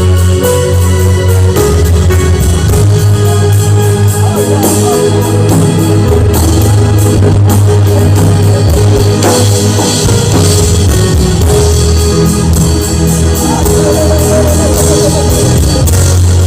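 Instrumental worship music without singing: a held, steady bass and chords under guitar, with a regular cymbal beat from a drum kit.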